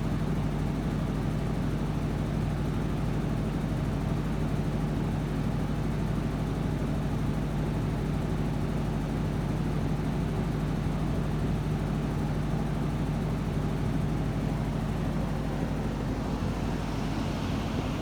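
Perkins diesel engine of a 110 kVA Bruno generator set running on test at a steady speed, an even low hum that does not change.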